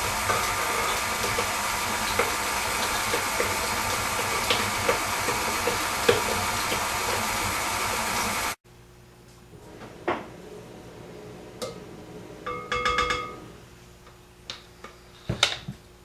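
KitchenAid Artisan stand mixer running steadily, its motor humming while the beater mixes cookie dough, then cutting off suddenly a little over halfway through. After that come quieter handling sounds: scattered clicks and knocks, a brief squeak, and a couple of sharper clicks near the end as the mixer head is tilted back.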